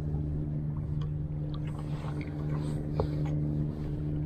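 Steady low hum of a boat engine running, with a few light clicks and splashes over it.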